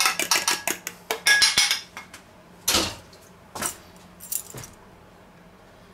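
Metal spoon beating egg yolk in a small stainless-steel bowl: quick clinks against the bowl, about six a second, stopping about a second and a half in. Three short scuffs follow, the first the loudest.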